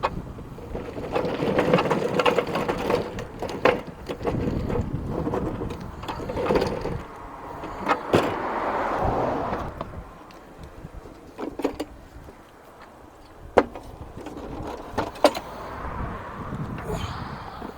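An old push lawnmower being handled and wheeled away: an uneven rolling rumble and clatter, with several sharp knocks spread through.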